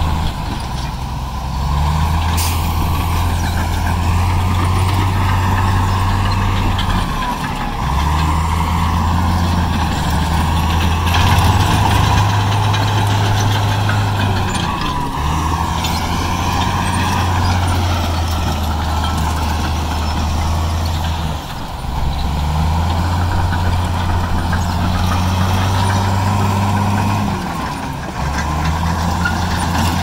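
Bulldozer's heavy diesel engine working, with a steady high whine above it. The engine note dips briefly and picks up again about every seven seconds as the load changes.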